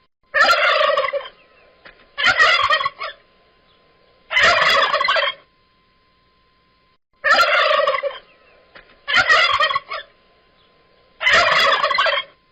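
A turkey gobbling, six rapid rattling gobbles of about a second each, spaced roughly two seconds apart.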